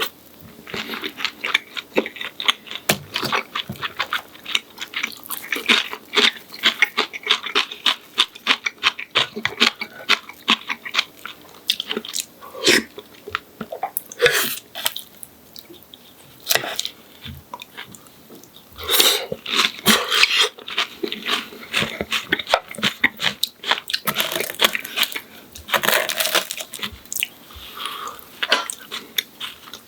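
Close-miked chewing and crunching of a crispy fried breaded pork cutlet (donkatsu): a long run of quick, crackly crunches, with louder bites about halfway through and again later on.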